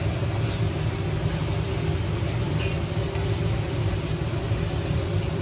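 Steady low mechanical hum of a running machine, even and unbroken.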